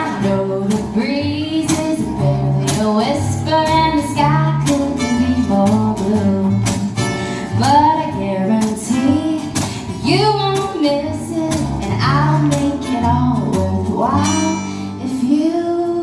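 Live folk song: a woman sings the melody over strummed acoustic guitar and a plucked upright double bass.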